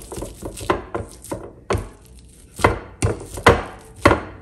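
Plastic potato masher pressing a boiled potato into a purée on a glass plate, knocking down through the potato onto the plate about seven times, roughly every half second.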